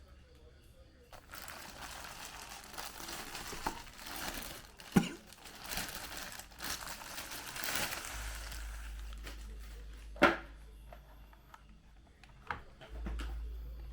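Crinkling, rustling handling noise with a few sharp clicks, about 5 and 10 seconds in.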